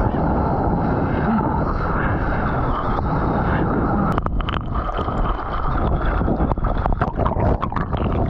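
Wind buffeting a GoPro Hero9's microphone over rushing water while a surfboard rides a breaking wave. From about four seconds in, spray and whitewater spatter against the camera in many quick splashes.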